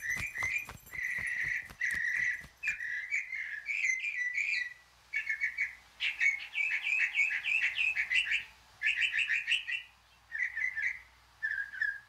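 Songbirds chirping in quick phrases of short, high notes, broken by brief pauses. There are a few soft low knocks in the first couple of seconds.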